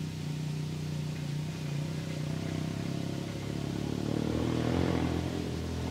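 An engine running with a steady low hum, growing louder about four seconds in and easing off near the end.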